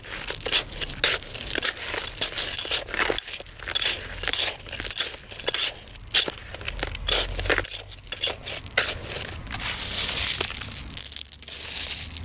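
Gravel stones and a dry sand-and-cement mix crunching and scraping in a bucket as stones from the drive are added and worked in by hand and with a trowel: a dense run of irregular scratches and clicks.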